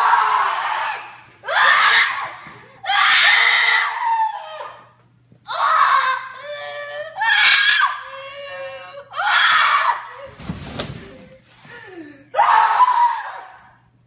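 A young girl screaming, high-pitched, in about seven loud bursts of a second or so each. A dull thump comes about two-thirds of the way through.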